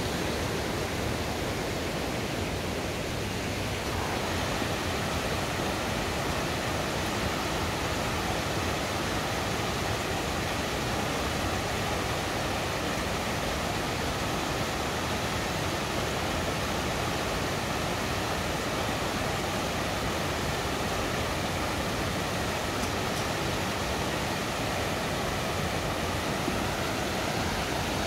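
A small creek cascading over mossy boulders in a steady, even rush of water.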